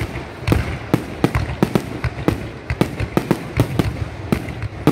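Aerial fireworks shells bursting in a rapid, irregular barrage of sharp bangs, about four a second.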